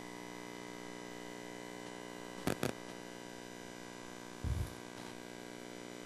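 Low steady electrical mains hum through the meeting room's microphone system, with two short clicks about two and a half seconds in and a soft low bump near the end.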